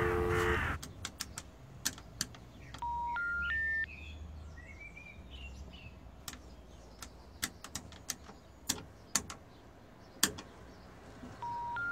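Telephone special information tones, three short steady beeps rising in pitch step by step, sound twice about eight seconds apart; this is the intercept signal that comes before a 'number unavailable' message. Between them come sharp clicks of payphone keypad buttons and handset handling, with faint birdsong.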